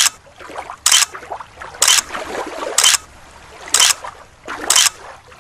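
Frog calling: a short, rasping croak repeated evenly about once a second, with fainter calls between.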